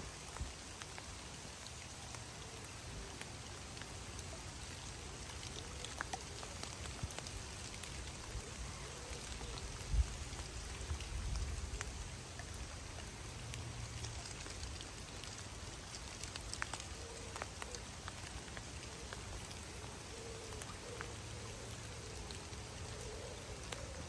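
Rain falling on a river, a steady hiss dotted with the ticks of individual drops splashing on the water, over a low rumble. A single dull thump stands out about ten seconds in.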